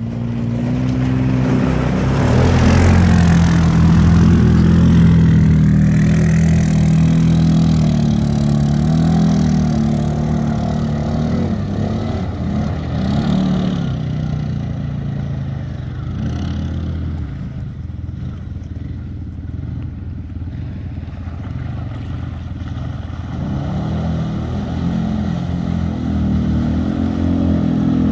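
Quad ATV engine, likely the CFMoto 500A, running and revving as the quad drives through shallow river water. It is loudest in the first few seconds, fades through the middle and grows louder again near the end as the quad comes back.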